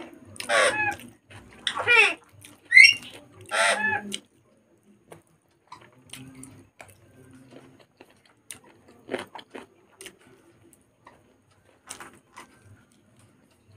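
Several loud bird calls, each a quick falling cry, over the first four seconds. After that only faint small sounds of eating with the fingers.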